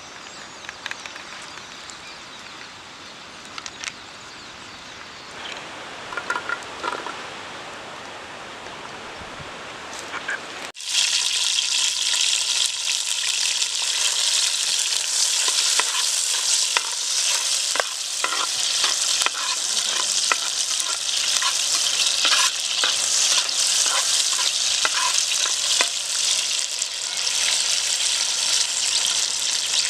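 Faint outdoor background with a few light chirps. After a sudden cut about eleven seconds in, there is a loud, steady sizzle of food frying in hot oil in a pan, full of small crackles and pops.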